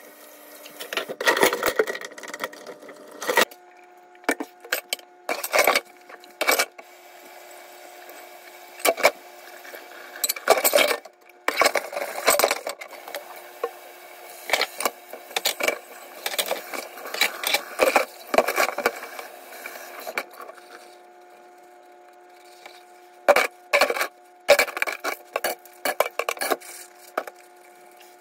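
Dishes and cutlery being hand-washed in a kitchen sink: irregular clinks, knocks and clatters, with a faint steady hum underneath.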